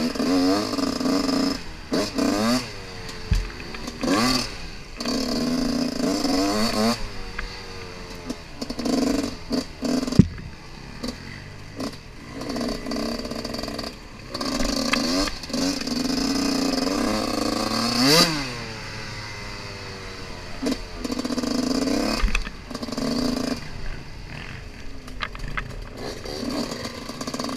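Dirt bike engine revving in repeated short bursts, the pitch rising and falling as the throttle is opened and closed over rough trail. Clatter and knocks from the bike bouncing over the ground come in between.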